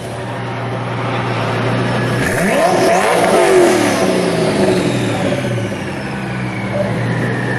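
Car engine accelerating over a steady low engine hum: the pitch climbs sharply about two seconds in, then falls away slowly.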